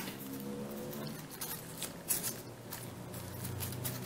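Folded origami paper being handled: light crinkling and small irregular clicks as the flaps of a modular paper mandala are lifted and pressed with fingers and a pointed tool.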